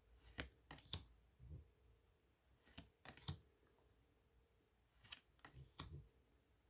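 Faint clicks and taps of tarot cards being turned over and laid down one after another, coming in small groups every second or two.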